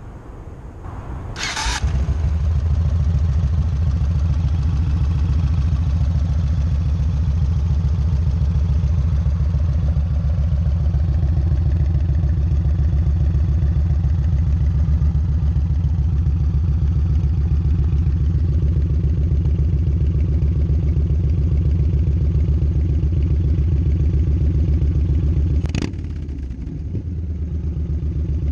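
Yamaha Road Star 1600's V-twin engine started through a Danmoto Highwayman stainless 2-into-1 exhaust: a short starter whir about a second and a half in, then the engine catches and idles steadily with a deep rumble. Near the end a sharp click, the sound dips for a moment, then the idle picks up again.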